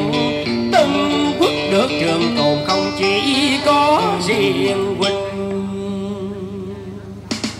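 Vietnamese cải lương singing: a voice with wide vibrato over plucked-string accompaniment, ending in a long held note that fades away near the end.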